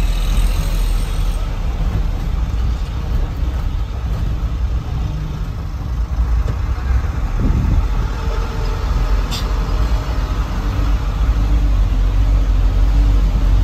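Truck engine running in a steady low rumble, heard from inside the cab as the truck rolls slowly. A brief high chirp comes about nine seconds in.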